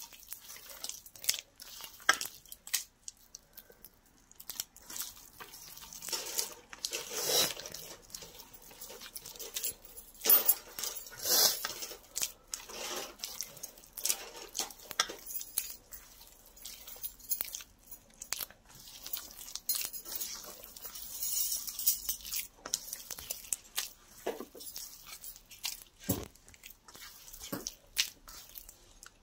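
A hand squeezing and kneading a wet mash of soaked brown bread, egg and milk in a steel bowl: irregular squelching, sticky smacks and occasional sharp clicks.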